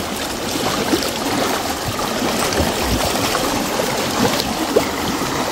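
Steady rush of water with small splashes, from cattle wading and swimming across a flooded crossing.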